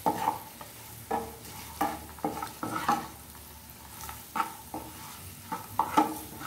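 Slotted spatula stirring and scraping boiled eggs through thick masala in a nonstick frying pan, in irregular strokes about once a second, over a light sizzle of frying oil. The loudest scrape comes near the end.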